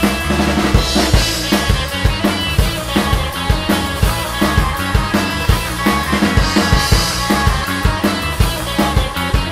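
Psychedelic punk rock song playing, with the drum kit's kick and snare prominent in a steady, driving beat.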